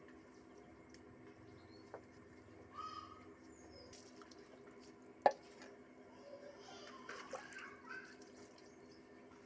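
Water poured from a cup splashing and dripping over a plucked chicken on a wooden stump, in a few short pours. There is one sharp knock about five seconds in.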